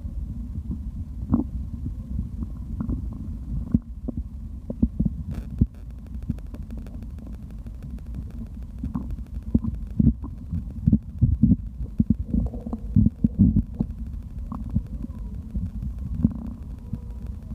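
Human stomach growling after drinking: a steady low rumble under frequent short gurgles and pops, with one sharp click about five seconds in.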